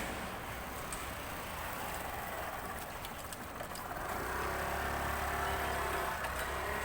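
An engine running steadily at low revs, growing louder about four seconds in, with a few faint ticks over it.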